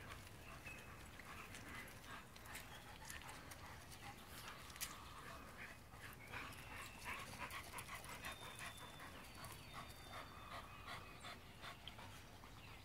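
Dogs panting and lapping water from a metal bowl, faint, with quick wet clicks.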